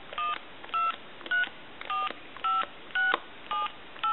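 AT&T 210 Trimline telephone's touch-tone keypad being dialed key by key, each press giving a short DTMF beep, about two a second, each digit a different pair of pitches. The keys are being walked through to test a 9 key that fails to dial.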